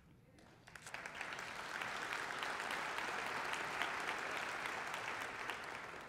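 Audience applauding. It builds up about a second in, holds steady, and tapers off near the end.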